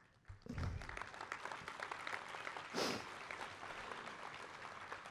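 Audience applauding, starting about half a second in and thinning out toward the end, with one brief louder outburst near the middle.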